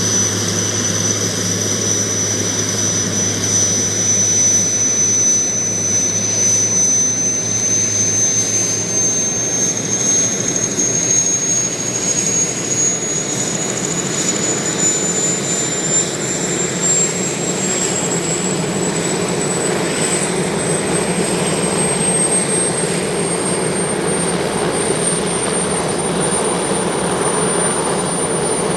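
Sud Aviation Alouette II helicopter's Turbomeca Artouste turboshaft engine during startup: a loud high-pitched turbine whine that rises slowly and steadily in pitch as the engine spools up, over a steady rushing noise.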